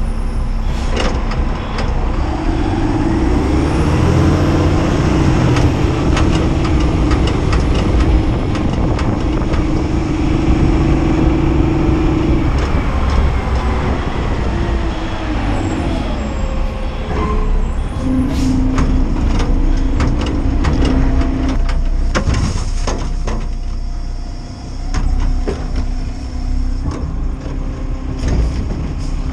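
Side-loader garbage truck running and revving up under load while its arm works: one long stretch of about ten seconds, then a shorter one of about three seconds. Scattered clanks and knocks sound throughout, and there is a short hiss of air, typical of an air brake, about three-quarters of the way through.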